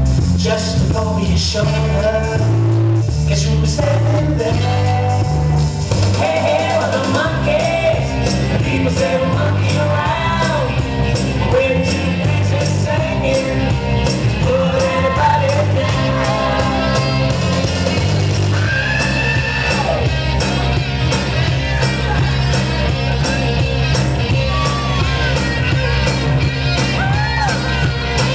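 Recorded song with singing over a steady beat and bass line, played for a stage dance routine.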